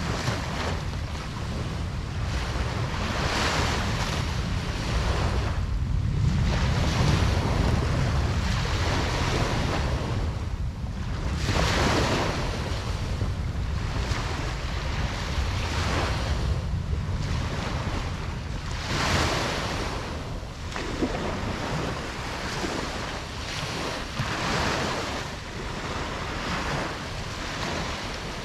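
Ocean surf washing onto a beach, the hiss of the breaking waves swelling and fading every three to four seconds over a steady low rumble.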